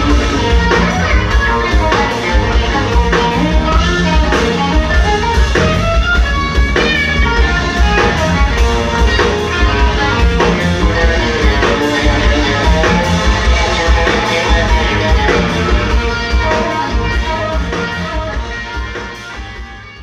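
Live blues band playing: electric guitar lead over electric bass and drum kit. The music fades out near the end.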